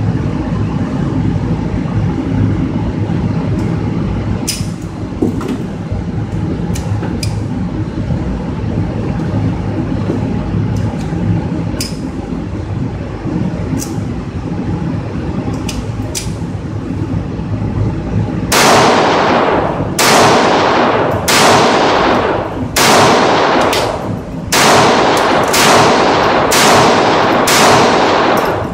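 Ruger SR22 .22 LR pistol fired in a steady string of about eight shots, roughly one a second, starting about two-thirds of the way in, each shot ringing out in an indoor range. Before the string there is a steady hum with faint, scattered sharp cracks of shots from other lanes.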